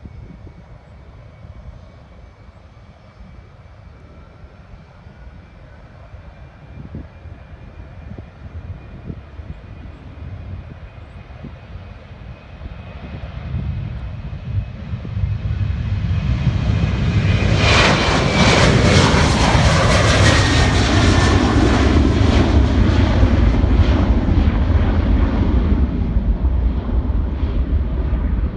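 Twin-engine jet airliner taking off, its engines at takeoff thrust, building from faint to loud about halfway through and staying loud to the end, with a high whine that slowly falls in pitch as it goes by.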